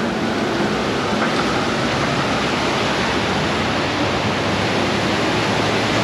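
Steady rushing of river rapids around a round ride raft: an even, unbroken hiss of water.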